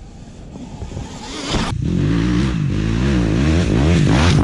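KTM 250 SX-F's single-cylinder four-stroke engine, fitted with an FMF exhaust, revving up and down repeatedly as the dirt bike rides a rough trail. It grows louder as the bike approaches. The first second and a half is quieter before the engine comes in strongly.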